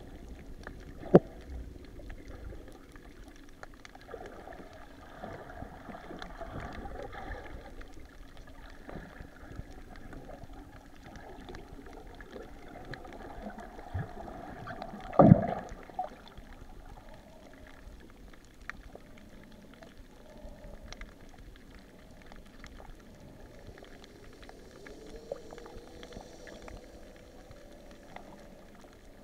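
Underwater sound over a shallow coral reef, recorded by the camera: a steady bubbling, gurgling water noise. A sharp knock comes about a second in and a louder one about fifteen seconds in, and a faint steady hum comes in near the end.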